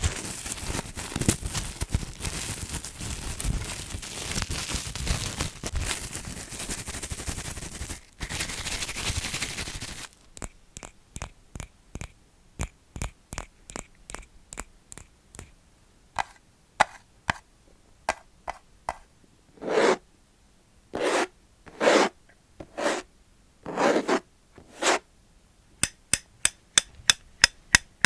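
Close-up ASMR scratching and scraping for about ten seconds, then it stops and gives way to separate light taps and a few short, louder rubbing strokes, with the taps coming faster near the end.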